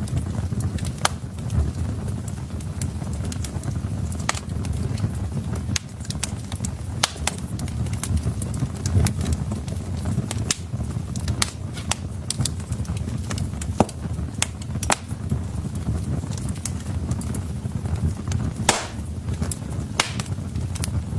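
Wood fire burning in a fireplace: a steady low rumble of flames with frequent sharp, irregular crackles and pops from the logs, a few of them louder.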